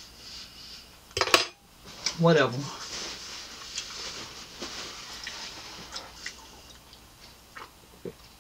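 Close-miked chewing of juicy pineapple chunks, wet smacking mouth sounds with small clicks, after a sharp clatter about a second in. Near the end there is a brief sip through a straw.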